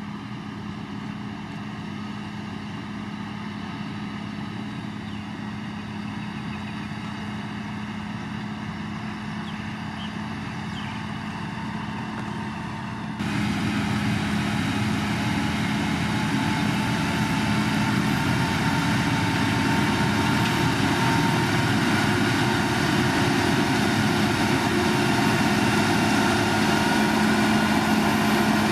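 Diesel engine of heavy road-building machinery running steadily with a constant hum. About thirteen seconds in it becomes abruptly louder.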